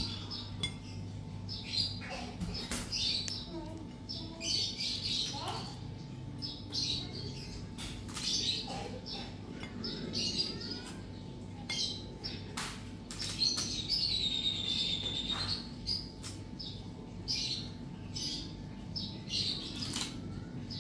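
Small birds chirping and tweeting over and over, with short high calls and sweeping whistles, mixed with light clinks and taps of cookies being set down on a ceramic plate; a low steady hum runs underneath.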